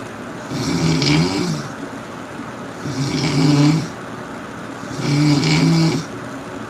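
Loud snoring: three snores about two seconds apart, each about a second long, a low rattling buzz with a breathy hiss.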